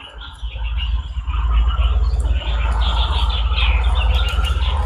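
Wind buffeting the microphone in a steady, fluttering low rumble that sets in just after the start, with lighter high chirping above it.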